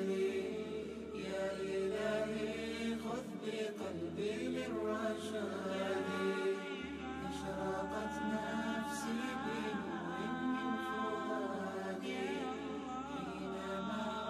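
Background vocal music: an Arabic devotional nasheed sung by voices without instruments, here in a wordless passage of long held notes.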